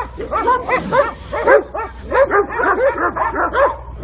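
Several dogs barking at a sea lion, the barks rapid and overlapping, several a second.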